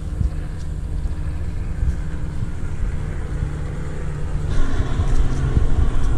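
Wind buffeting the camera's microphone outdoors, giving a steady, uneven low rumble that grows louder and brighter about four and a half seconds in.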